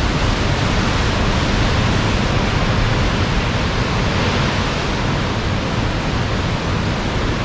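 Heavy surf from a rough sea pounding the rocky cliffs: a loud, steady rush of churning water.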